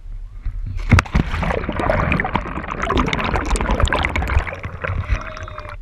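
A splash as a body plunges into the lake about a second in, followed by a dense rush of bubbles, gurgling and crackling heard with the camera underwater.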